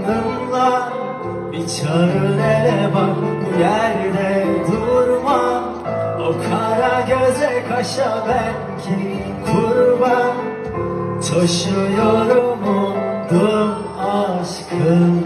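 Live pop concert: a male vocalist singing a Turkish song over a full band, heard from among the audience.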